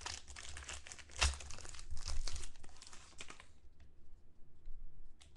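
Trading card pack wrapper being torn open and crinkled by hand, a dense crackle with one sharper rip about a second in. After about three and a half seconds it drops off to a few faint clicks.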